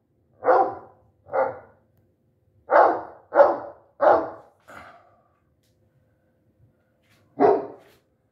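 A dog's barks played back as a recording through a portable Bluetooth speaker: two barks, then a run of four with the last one faint, a pause of about two seconds, and one more bark near the end.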